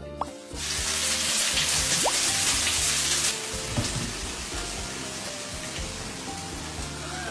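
Raw pork hitting hot oil in a frying pan and sizzling. The hiss starts suddenly about half a second in, is loudest for the first few seconds, then settles to a steadier, quieter sizzle.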